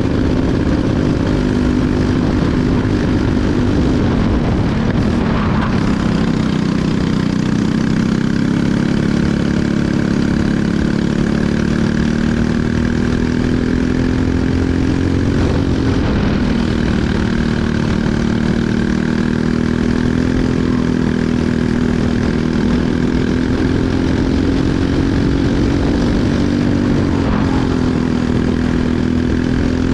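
Briggs & Stratton LO206 single-cylinder four-stroke flathead kart engine running under race load, heard close from on board. Its pitch drops as the throttle is lifted for corners about four to six seconds in, around sixteen seconds and near twenty-seven seconds, then climbs steadily again down the straights.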